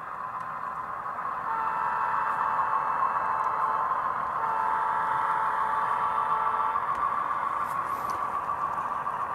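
A model diesel locomotive's DCC sound decoder plays the engine running through the loco's small speaker, growing louder as it gets under way. Two long horn blasts of about two seconds each sound over it, one about a second and a half in and one past the middle.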